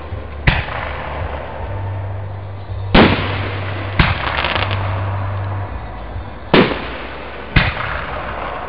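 Aerial fireworks shells bursting overhead: five loud booms at uneven intervals, each trailing off in a rolling echo.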